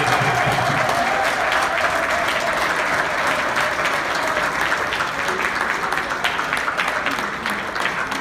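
A congregation applauding: many hands clapping together in a dense, steady patter that eases off slightly toward the end.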